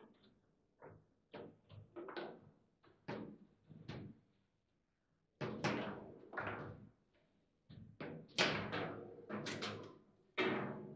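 Table football (foosball) being played: the ball and the rod figures clack and knock in quick, irregular strikes. The hardest hits come in a flurry about eight to ten seconds in.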